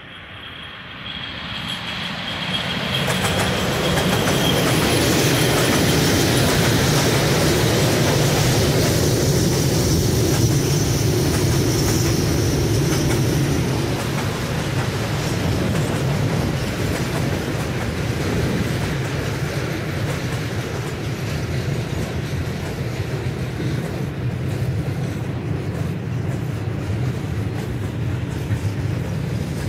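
ET22 electric freight locomotive hauling a container train past at close range. The sound swells over the first few seconds as the locomotive comes by, with a thin high whine as it nears. It then settles into a loud, steady rumble and rattle of the container wagons rolling past.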